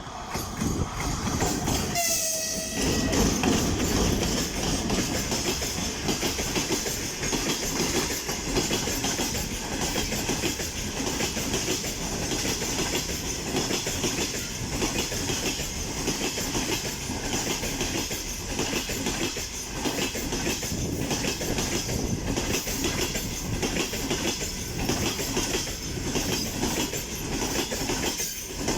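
Freight train hauled by a VL80S electric locomotive passing, with a brief horn blast about two seconds in. The clickety-clack of wagon wheels over rail joints then runs on steadily over a loud rolling rumble.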